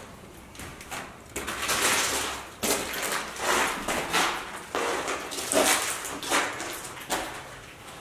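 Footsteps scuffing and crunching across a bare floor strewn with peeled paint flakes, about one step a second.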